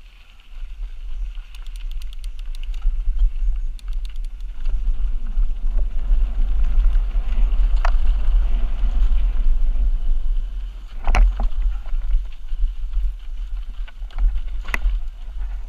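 Mountain bike descending a dirt singletrack, heard from a camera on the rider: wind buffeting the microphone and tyres rumbling over the dirt, growing loud about half a second in as speed builds. Light ticking runs between about two and four seconds in, and sharp knocks from bumps come about 11 and 15 seconds in.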